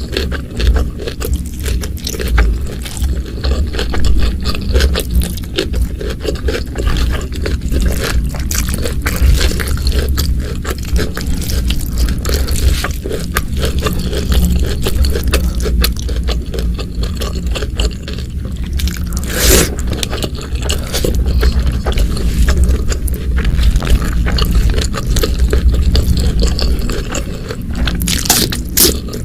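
Close-miked eating sounds: continuous chewing and crunching of food with many small mouth clicks over a steady low rumble, and one louder sound about 19 seconds in.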